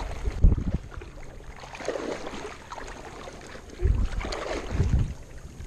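Wind buffeting the microphone in several low gusts, over a steady background haze of water and boat noise.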